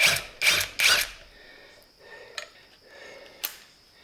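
DCK KDPL03-14 20V cordless impact driver run in three short bursts in the first second, backing a 3-inch screw out of pressure-treated lumber, followed by a few light clicks and knocks.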